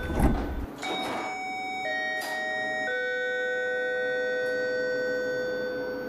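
A passenger train's electronic door warning tone sounding steadily, its pitch stepping a few times. There is a knock about a quarter second in and short hisses of air from the door mechanism around one and two seconds in.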